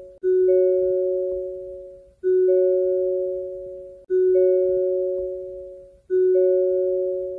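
Hyundai car's door-open warning chime repeating: a soft two-note chime, low note then a higher one, about every two seconds, each fading away before the next. Four chimes sound here.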